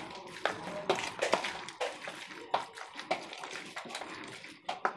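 Metal spoon mixing chunks of chicken liver in a thick spice marinade in a plastic bowl: wet squelching with irregular light clicks of the spoon against the bowl.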